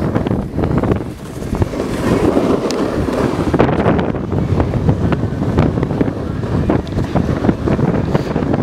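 Wind buffeting the camera microphone as it rides down a snow run at speed, mixed with the rough scrape of a snowboard on packed snow.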